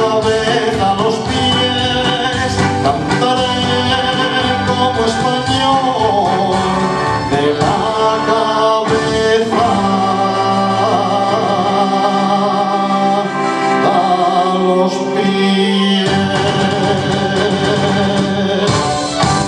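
A male singer's voice, amplified through PA speakers, singing long, held, gliding notes over a recorded backing track with guitar.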